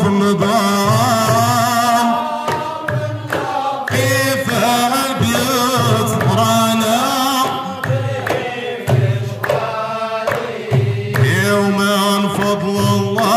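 Hamadsha devotional chant: a lead singer, amplified through a microphone, and a group of men singing, over tall hand drums beaten in a steady rhythm.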